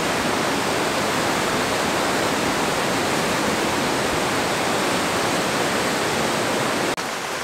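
Fast-flowing Parvati River rushing over rocks as whitewater, a steady, even rush of water. It cuts off suddenly near the end, giving way to a slightly quieter hiss.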